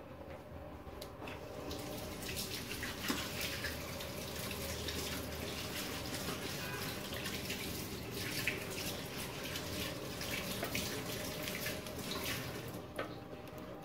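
A slotted spoon spreading thick, wet chicken and mushroom sauce over rice in a pot: steady wet scraping and squishing, with scattered small clicks, the sharpest about three seconds in and again past the middle.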